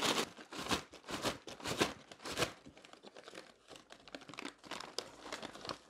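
A paper bag of French fries being shaken to coat them in chili seasoning powder: paper crinkling and fries rustling inside, in a run of quick shakes for about the first two and a half seconds, then lighter crinkling of the bag.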